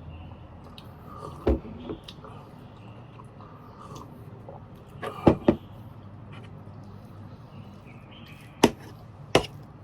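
Eating at a table: a utensil knocking sharply against the dish six times, in three rough pairs, between quieter mouth and handling sounds.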